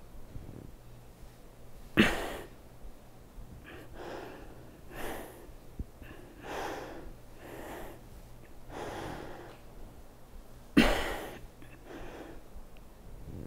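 A woman's forceful breaths out, about one every second or so, from the effort of a core exercise. Two are sharper and louder, about two seconds in and about eleven seconds in.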